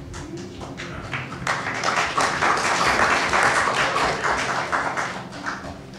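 Congregation applauding: a few scattered claps that swell into a full round of applause, then die away near the end.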